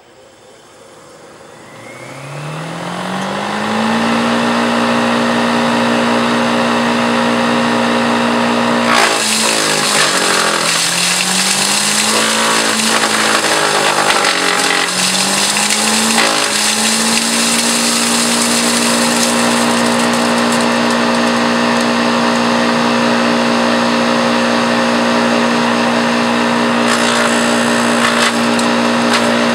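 Patriot electric wood chipper switched on: the electric motor spins up with a rising hum over about three seconds, then runs steady. From about nine seconds in, branches are fed and chipped, adding a loud rush of chipping noise, and the motor pitch sags and recovers three times under the load.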